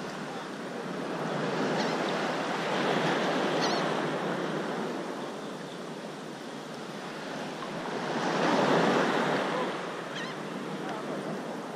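Small sea waves washing and lapping around a wader standing in shallow water, swelling twice, the second swell the louder, near the end.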